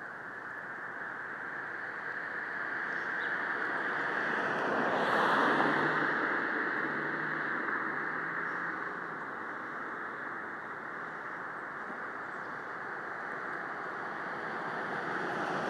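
A car driving past: tyre and engine noise swells to a peak about five seconds in and fades, and another vehicle approaches near the end.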